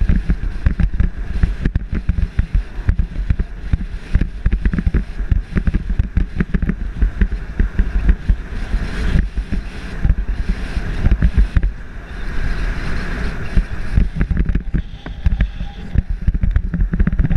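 Motorcycle riding a dirt trail, heard from the bike's camera: engine running under heavy, irregular wind buffeting on the microphone.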